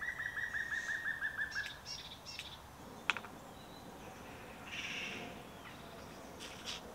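A woodland songbird singing a quick run of about ten repeated whistled notes, falling slightly in pitch, followed by a few fainter chirps. A single sharp click about three seconds in.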